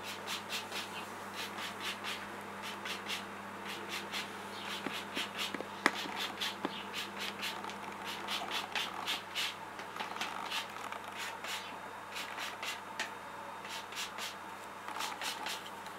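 Lemon peel being zested on a fine rasp grater: quick repeated scraping strokes, with one sharp tick about six seconds in.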